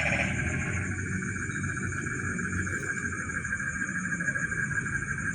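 Night chorus of crickets and other insects: several steady high-pitched trills running together, with one louder call on top that fades out about a second in.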